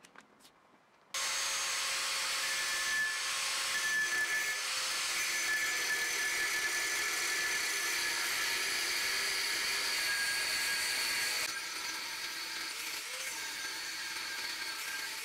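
Angle grinder cutting into a steel car leaf spring: it starts abruptly about a second in and runs as a steady high whine over a hiss of grinding. About eleven seconds in it drops a little in level and carries on.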